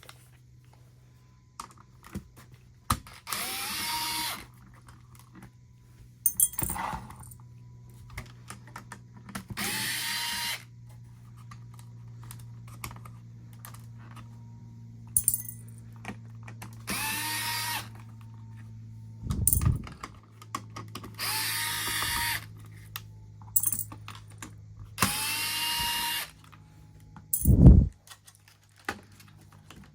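Electric screwdriver backing out the Torx screws that hold an original Xbox motherboard, in five short runs of about a second each, the motor whine rising as it spins up. Small clicks of screws and tools come between the runs, along with two dull thumps, the loudest near the end.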